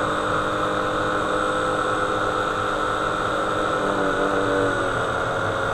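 RC hydroplane's electric motor running steadily under ESC control, spinning its flex shaft and three-bladed prop out of the water. It is a steady hum of several held tones over a hiss, with a small shift in pitch about four and a half seconds in.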